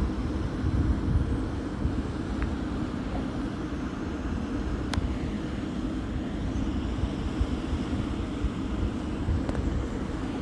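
Eleven-year-old Siemens Gamesa SWT-2.3-108 wind turbine running, a steady low rumble, with one sharp click about five seconds in.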